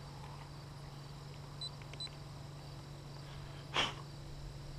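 Two short high electronic beeps, less than half a second apart, from the RC pilot's transmitter, over a faint steady low hum and background crickets. Near the end a brief hiss is the loudest sound.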